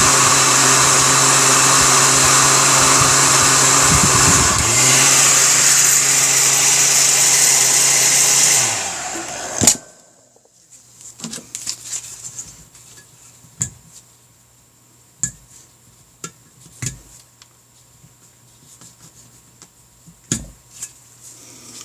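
Heat gun running steadily with a motor hum and rush of air, then switched off about nine seconds in, its motor winding down. Scattered light clicks and taps of small metal tools follow in the quiet.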